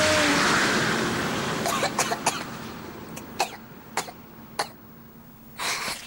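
A cartoon truck racing past fades away in a rush of dust in the first second or so. A boy then coughs on the dust it kicked up: a string of short, sharp coughs, the last one longer, near the end.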